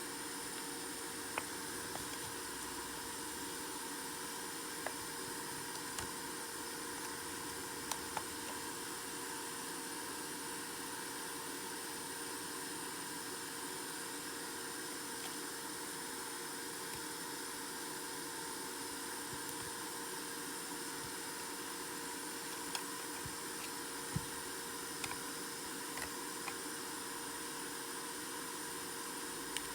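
Steady hiss with a faint constant hum, broken by a dozen or so light, sharp clicks scattered throughout, typical of small repair tools touching phone parts.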